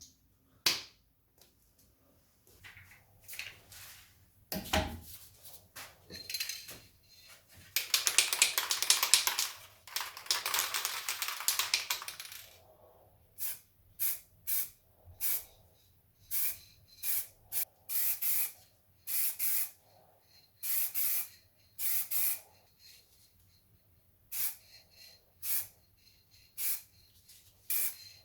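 Spray primer hissing from a nozzle: one continuous spray of about four seconds, then a string of short bursts about a second apart. There is a single thump before the spraying starts.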